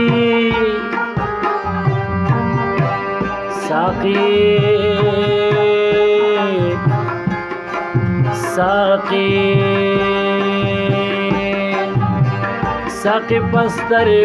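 Instrumental passage of a Pashto folk song: a harmonium holding long sustained notes over a busy tabla rhythm, with a plucked long-necked lute. A few brief sung glides break in about 4, 8 and 13 seconds in.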